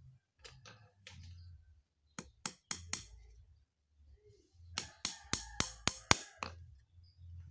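Hammer driving a small nail into a thin wooden slat at a cage corner: four quick taps about two seconds in, then a run of about six harder strikes with a slight metallic ring near the end. Light clicks of the slats being handled come first.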